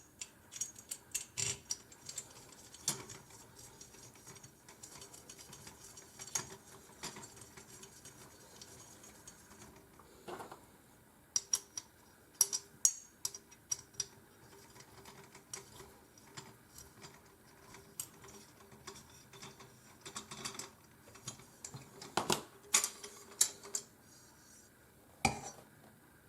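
Small metal hardware clicking and clinking irregularly as an M5 screw and washer are fitted and driven into an aluminium extrusion frame, with one louder knock near the end.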